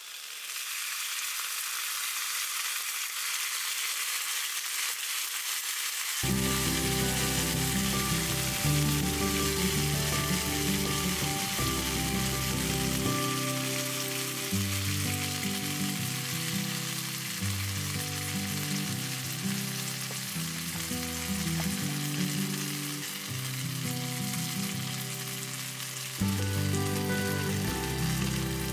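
Okonomiyaki sauce sizzling on a hot skillet: a steady crackling hiss of sauce frying on the pan. Background music comes in about six seconds in.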